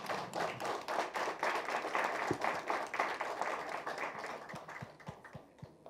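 Audience applause: many people clapping together, the applause thinning to a few scattered claps and dying away near the end.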